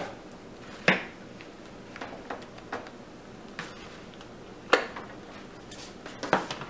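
A few separate clicks and knocks of a stick blender and utensils against plastic mixing bowls of soap batter, the loudest about three-quarters of the way through and a small cluster near the end. The blender motor is not running.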